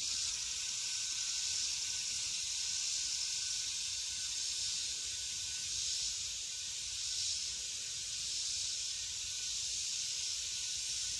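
Compressed air hissing steadily through an air chuck held on a pickup's front tire valve stem as the tire is aired up.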